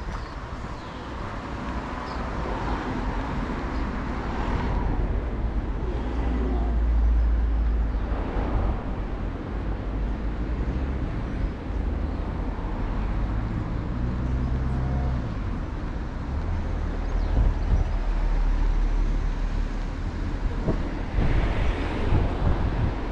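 Road traffic ambience: a few cars passing on the road, each swelling and fading, over a steady low rumble of wind on the microphone.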